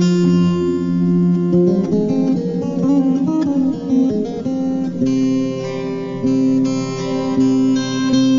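Gitar tunggal music: a South Sumatran solo acoustic guitar playing a plucked melody over held bass notes, with a change of chord about five seconds in.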